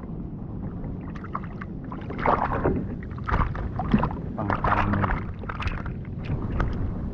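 Water splashing and streaming off a mesh keep net full of live fish as it is hauled up out of the lake beside a kayak. The first couple of seconds hold only a low steady rumble; then come irregular splashes.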